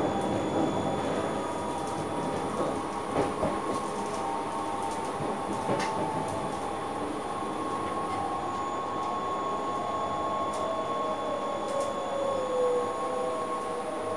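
Inside the cab of an NS SLT electric multiple unit crawling over station points: a steady electric drive hum with a few sharp clicks as the wheels cross rail joints and switches. A tone slides down in pitch in the second half as the train slows.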